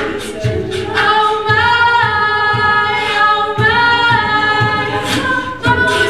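Mixed-voice a cappella vocal jazz ensemble singing into microphones, holding sustained chords over a low pulsing beat.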